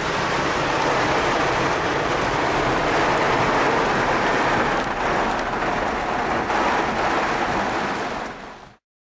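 Heavy rain falling on a car's roof and windows, heard from inside the car: a loud, steady rush that fades out near the end.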